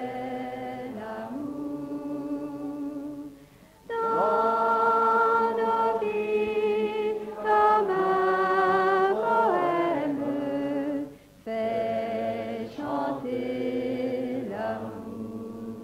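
Choir singing a slow French liturgical refrain in long held notes, in three phrases with short breaks about four and eleven seconds in, fading near the end.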